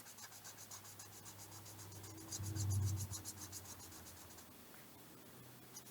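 Pen scratching on paper in quick, faint strokes, as in drawing or writing in a planner. A brief low hum rises and fades about two seconds in.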